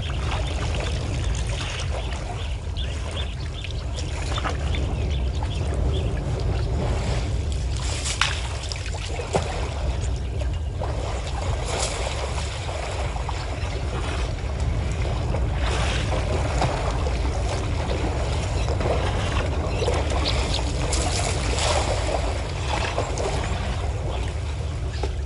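Water splashing and trickling as African elephants wade and drink and a calf swims among them, with a few sharper splashes scattered through, over a steady low rumble.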